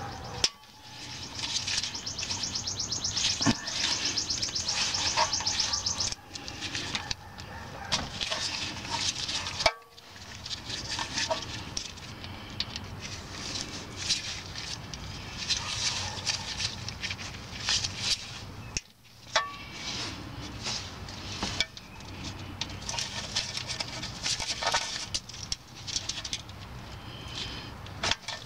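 Socket ratchet clicking as rusted 8 mm oil pan bolts are worked loose on a 2012 Mazda3: a fast, even run of ratchet clicks about a second in, lasting several seconds, then shorter bursts of clicks and small metallic knocks as the tool is repositioned.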